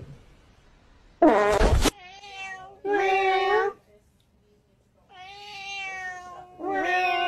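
A cat meowing in several long, drawn-out calls, with a short loud burst of sound about a second in.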